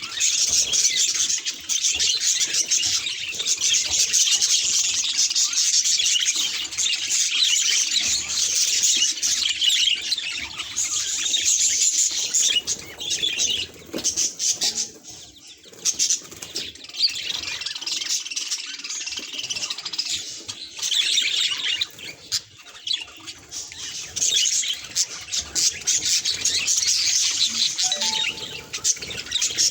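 Budgie chattering and warbling, a fast run of high chirps and squeaks that goes on almost without pause and thins out briefly about halfway through.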